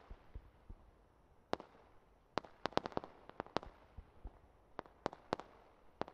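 Fireworks going off: sharp cracks and pops in irregular clusters, a single one about a second and a half in, a quick run of them around the middle, and a few more near the end.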